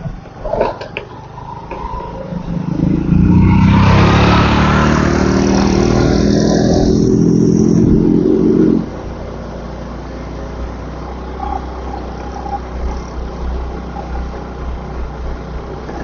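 Motorcycle engine running while riding. It goes louder under throttle from about three seconds in and eases off sharply near nine seconds, then runs more quietly.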